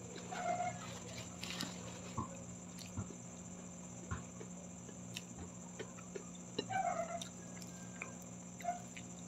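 Close-miked eating sounds: soft chewing and scattered mouth and finger clicks as rice and fried milkfish (daing na bangus) are eaten by hand, over a steady low hum. A few short pitched sounds stand out, one about half a second in and two near the end.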